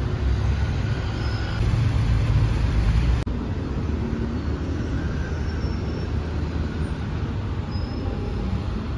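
Outdoor city traffic noise: a steady low rumble of passing road vehicles, which drops abruptly and settles a little quieter about three seconds in.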